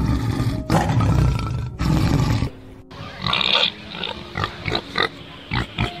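A tiger's low, rough growls in three long stretches over the first two and a half seconds, then a pig's short grunts and squeals in quick succession.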